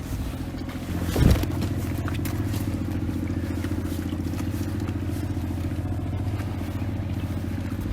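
Boat engine running steadily, with a single knock about a second in.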